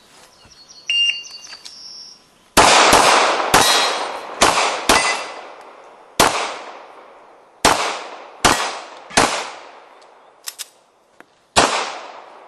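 A shot timer's electronic start beep, then about ten gunshots fired in uneven strings with pauses between them, each shot ringing out as it echoes.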